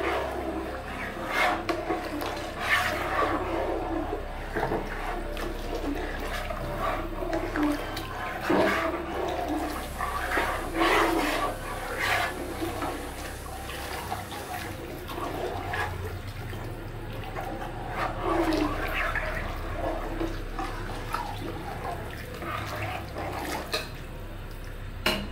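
A metal ladle stirring a large pot of thin kadhi, the liquid sloshing and splashing unevenly, with now and then a sharp knock of the ladle against the pot. The curry is kept moving so the gram flour does not settle on the bottom.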